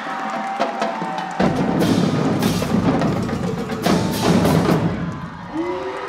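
Marching drumline playing: snare, tenor and bass drums come in heavily about a second and a half in, with cymbal crashes twice. Crowd noise and yells sit underneath.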